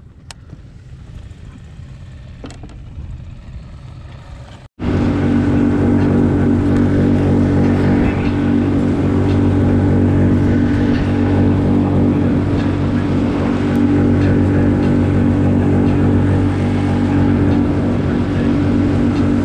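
Small outboard motor on a micro skiff running steadily at speed, with water hissing and spraying off the hull. It cuts in loudly about five seconds in, after a quieter stretch of low hum.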